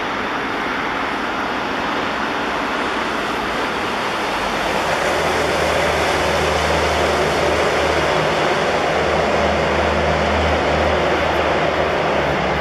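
Jet engines of taxiing airliners make a steady, loud rushing hiss as a Boeing 777 rolls past. About five seconds in, a deeper steady hum joins and the sound grows a little louder as a four-engined Boeing 747 taxis toward the microphone.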